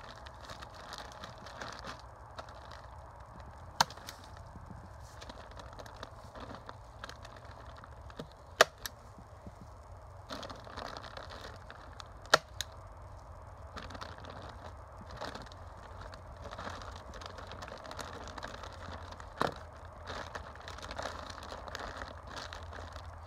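Hand staple gun firing four sharp snaps, several seconds apart, fastening black plastic wrap over a beehive, with the plastic sheeting rustling and crinkling between the shots.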